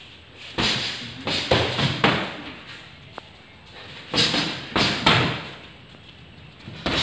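Boxing gloves thudding as punches land during sparring, in a quick flurry of three or four blows about a second in, another flurry a little past four seconds, and one more blow near the end.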